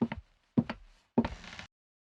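Footsteps on a wooden floor: three steps a little over half a second apart, each a quick heel-then-toe double knock, the last one cut off abruptly.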